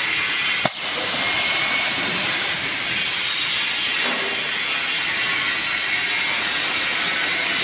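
Steady hissing noise of running machinery, with one sharp click about a second in.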